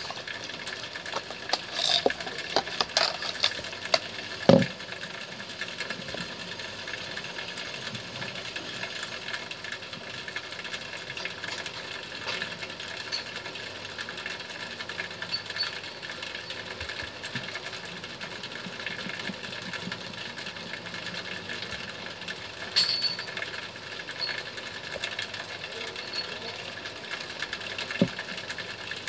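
Plastic clicks and knocks of a Casio fx-570VN PLUS calculator being handled and slid out of its hard slide-on cover, loudest about four and a half seconds in, followed by a few faint clicks of its keys being pressed over a steady background hum.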